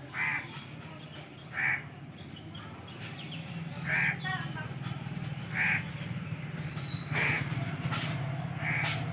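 Short animal calls, about six of them, spaced a second or two apart, over a steady low hum.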